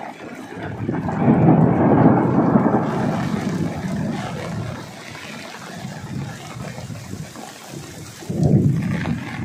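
Heavy rainstorm: a steady downpour with two loud rushing surges, one about a second in and another near the end.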